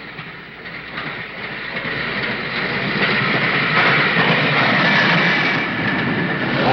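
A train running on rails, a steady rumbling clatter that grows louder over the first few seconds. A thin high whine rides over it from about three seconds in.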